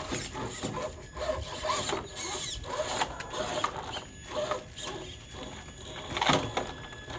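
Traxxas TRX-4 Sport RC crawler's electric motor and gearbox whining in short bursts that rise and fall in pitch as the throttle is worked, with knocks and scrapes of its tyres and body on hard plastic toys as it climbs over them.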